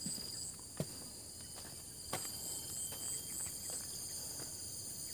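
Insects keeping up a steady high chorus with a pulsing trill, with a few footsteps on a dirt path.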